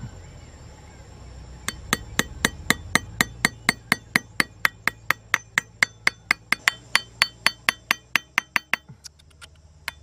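Rapid metal-on-metal tapping, about four blows a second, each with a short bright ring: a knife blade used as a hammer, driving a small metal hook into a wooden board. The tapping starts a little under two seconds in and stops about nine seconds in.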